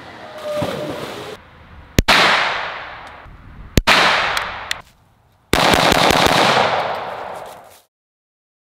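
A splash, then two single gunshots about two seconds apart, each with a long echoing tail. A little past halfway comes a quick string of several shots that echoes away.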